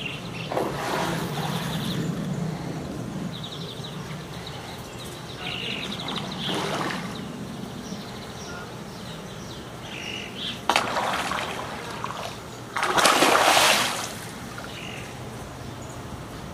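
Hooked tambaqui thrashing at the water's surface near the bank, in four bursts of splashing, the last and loudest about thirteen seconds in.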